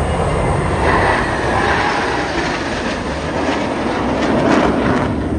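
Jet engines of a formation of display aircraft passing overhead: a loud rushing noise that swells and fades, with a couple of sharp crackles near the end.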